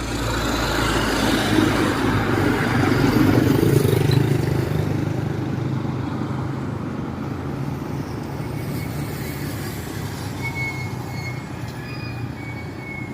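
Road traffic: a motor vehicle passes close by, loudest about three to four seconds in, then fades into steady traffic noise.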